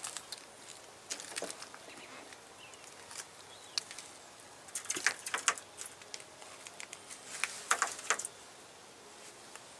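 A small bird pecking its beak against the grille of a Dodge pickup truck, attacking its own reflection: bursts of sharp, rapid taps, about a second in, around five seconds in, and again near eight seconds.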